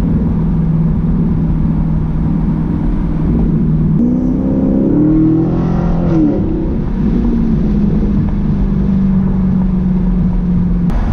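2017 Camaro SS's 6.2-litre V8 through a Borla S-Type axle-back exhaust, heard from inside the cabin while driving: a steady low drone, with the revs rising about four seconds in and dropping back about two seconds later, then steady again.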